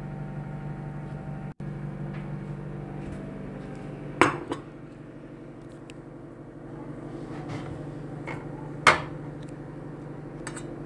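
Stainless steel pot and its metal spoon knocking: two sharp metallic clinks about four and a half seconds apart, with a few fainter taps, over a steady low hum.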